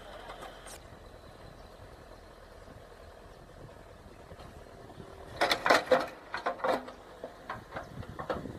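New Holland backhoe loader's diesel engine running low and steady while its bucket tears at a large tree stump and its roots. A cluster of loud sharp cracks and knocks comes about five and a half seconds in, with a few smaller knocks near the end.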